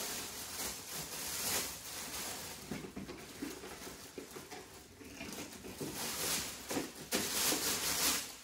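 Shopping bags rustling and crinkling as someone rummages through them and lifts a shoe box out, an uneven run of crackles and scrapes that grows busier near the end.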